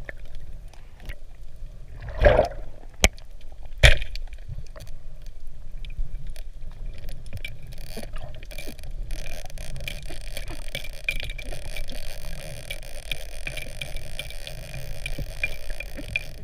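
Underwater sound through a camera's waterproof housing while spearfishing: a low water rumble with handling noise, and a few sharp knocks in the first four seconds. From about eight seconds in there is a steady high hiss full of fine crackling ticks.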